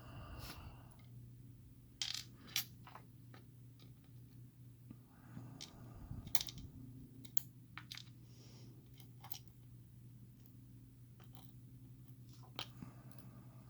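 Small lock pins and springs clicking and clinking as they are taken out of a pin-tumbler lock cylinder and set down, a dozen or so sharp metallic ticks at irregular intervals.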